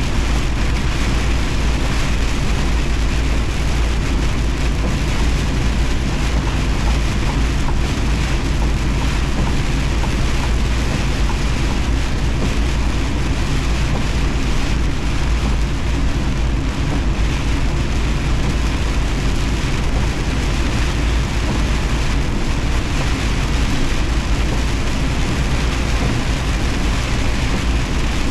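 Heavy rain hitting a semi truck as it drives, over the steady low drone of the truck's engine and tyres. The sound stays even throughout, with no distinct thunderclap.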